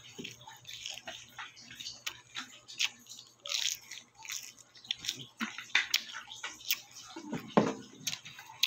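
Close-up chewing and crunching of a lettuce wrap of roast pork (lechon), with irregular crisp crunches throughout.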